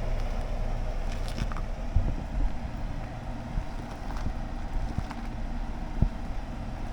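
Vehicle ride noise: a steady low road rumble, with a few small knocks and bumps.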